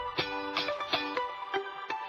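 Background instrumental music: a steady rhythm of short pitched notes.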